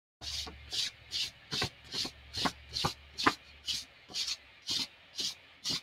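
Short rubbing strokes on paper at an even pace, about two a second, made by hand on the drawing. The strokes start abruptly a moment in, and a low hum sits under the first half.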